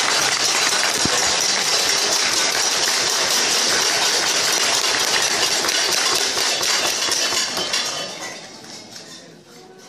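Audience applauding: dense clapping from many people in a large hall, dying away about eight seconds in.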